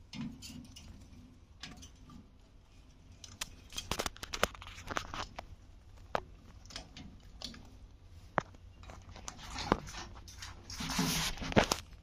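Alexandrine parakeet's beak crunching pieces of green capsicum and tapping on the wire cage floor: scattered sharp clicks and crunches, with a louder rustling burst near the end.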